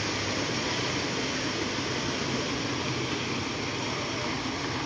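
Steady rushing noise of vehicles driving through a flooded street, their wheels churning up the water.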